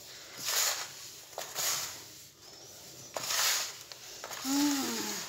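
Hands rubbing and crumbling a dry semolina and date mixture in a metal pan: three gritty swishes, each with a faint click. A short voiced sound comes near the end.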